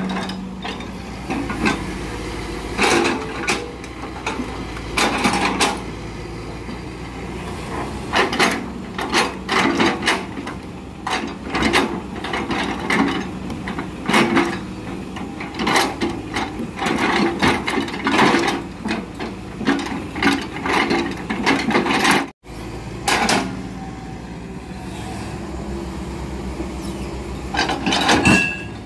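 Hydraulic excavator with a log grapple loading rubberwood logs onto a truck: the diesel engine runs steadily beneath repeated irregular wooden knocks and clunks as logs are gripped and dropped onto the load.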